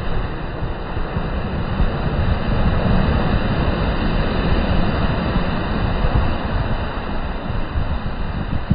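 Sea surf breaking and washing up a sandy shore, swelling louder in the middle as a wave crashes, with wind rumbling on the microphone.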